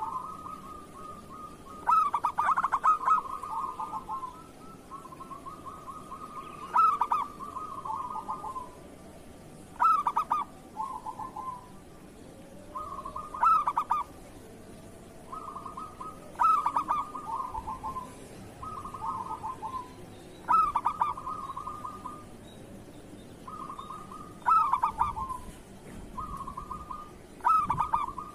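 Zebra doves (perkutut) cooing: repeated phrases every three to four seconds, each opening with a loud, sharp note and running into a rolling, stuttering trill.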